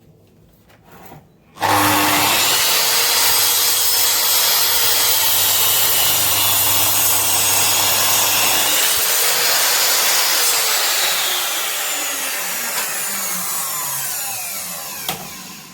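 Electric power saw starting up about two seconds in and cutting into a 5x2 timber offcut for several seconds, then released and spinning down with a falling whine.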